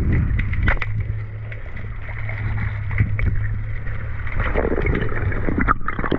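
Underwater sound on a spearfishing dive: a steady low hum with a few sharp clicks, turning into a busier rush of water noise in the last couple of seconds.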